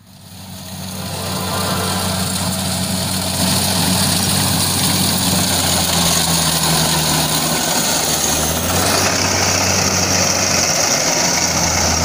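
Tracked rice combine harvester running as it cuts rice: a steady engine hum under a broad hiss, fading in over the first two seconds and turning brighter about nine seconds in.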